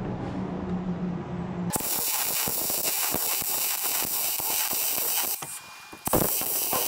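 Wire-feed welder arc crackling and hissing while welding a steel bracket: one steady bead of about three and a half seconds starting near two seconds in, then after a short pause a second burst of welding near the end.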